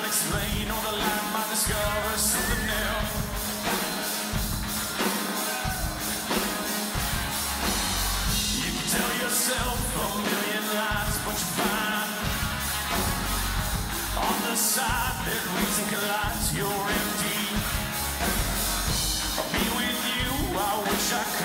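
Live rock band playing a song: electric and acoustic guitars over bass and drums, with a man singing.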